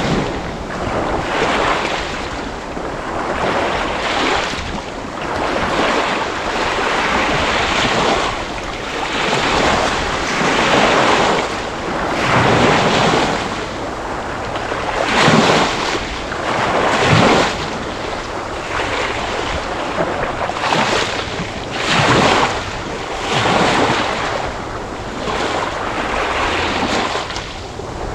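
Sea waves surging and washing in, a steady rush of water that swells and eases every few seconds.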